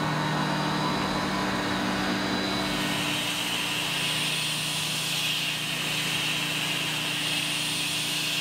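Tormach 770 CNC mill spindle running steadily while a thread mill cuts internal threads in an aluminium block. A higher-pitched hiss of cutting comes in about three seconds in.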